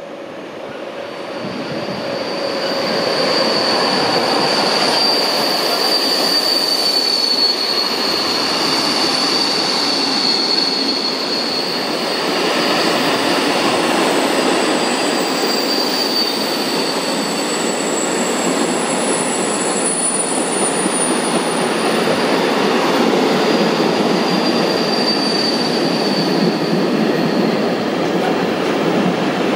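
A train running along the rails close by, its steady rumble and wheel noise building over the first few seconds and then staying loud. A high, thin wheel squeal rings over it for several seconds at a time.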